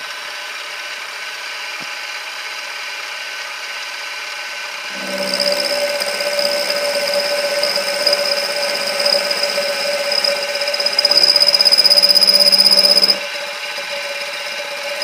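Milling machine running with an end mill turning. About five seconds in, a steady whine starts as the cutter works along the metal shaft. It is loudest near the end of the cut and stops abruptly about thirteen seconds in, leaving the machine running.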